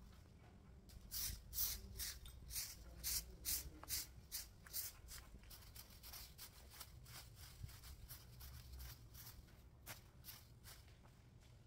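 Broom sweeping a concrete surface: brisk, scratchy strokes about twice a second, loudest over the first few seconds and weaker toward the end.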